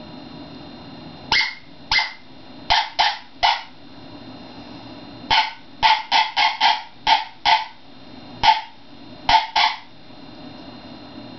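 Cow horn howler, a mouth-blown predator call, sounding coyote barks: about fifteen short, sharp barks in clusters, a few at a time, with brief pauses between groups.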